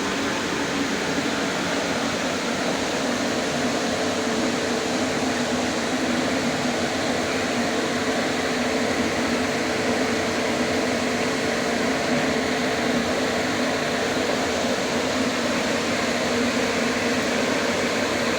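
A fan running steadily: an even rush of air over a low, constant hum, with no change in speed.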